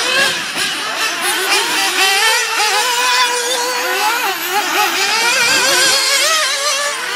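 Several 1/8-scale nitro RC buggies' small two-stroke glow engines buzzing at high pitch, overlapping, each rising and falling in pitch as the cars accelerate and brake around the track.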